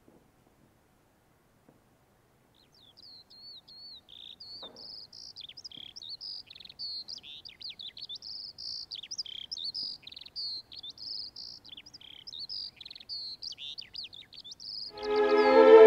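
Songbird singing a fast, varied warbling song of high chirps and trills, starting about three seconds in, from a film's soundtrack. Near the end, orchestral string music comes in loudly over it.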